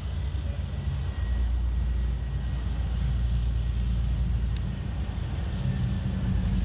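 Gepard tracked anti-aircraft tanks driving across rough ground: a steady, low engine and track rumble.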